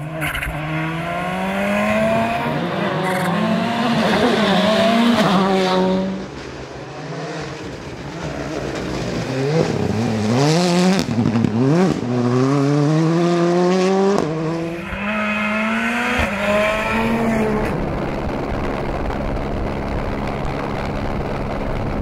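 Rally cars at full speed on a special stage: turbocharged four-cylinder engines revving hard, with pitch repeatedly rising and dropping through gear changes and quick throttle blips. Tyres scrabble on the loose surface. The engine note settles into a steadier drone over the last few seconds.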